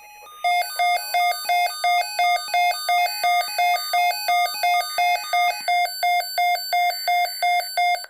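Two weather alert radios sounding their alarms for a severe thunderstorm watch. The alarm is a loud, rapid beeping of about three beeps a second, with a second pattern of stepping tones layered over it, and it cuts off suddenly near the end.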